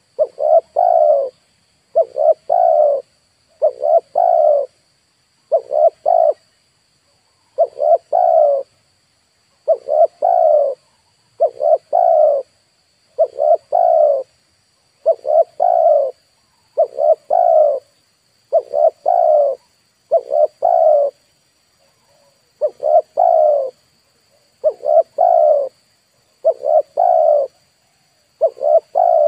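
Spotted dove cooing, a short phrase of coos repeated about every two seconds, over a faint steady high tone.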